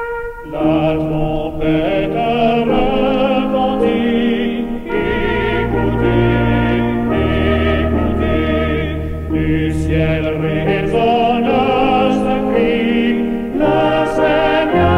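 Choral music: voices singing slow, sustained chords, with a deep bass line coming in about five seconds in.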